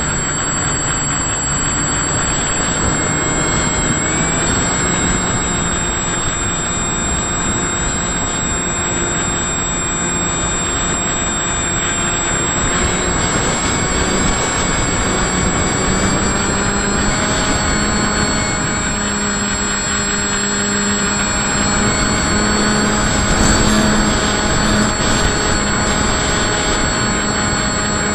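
FPV model aircraft's motor and propeller running in flight, recorded onboard: a steady whine that steps up or down in pitch a few times as the throttle changes. Wind rushes over the microphone underneath.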